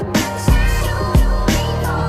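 Background music with a strong, regular bass-drum beat.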